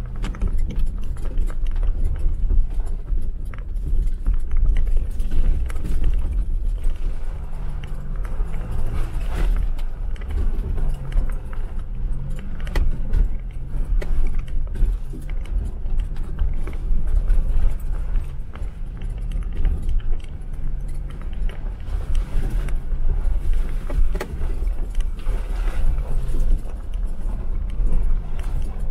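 Jeep Wrangler driving over a rough snowy off-road track: a steady low engine rumble with frequent rattling and jangling from the jolts.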